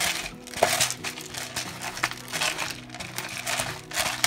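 Repeated short rustling, crinkling bursts, about one a second, as garlic and pepper are sprinkled and rubbed onto raw chicken liver by hand.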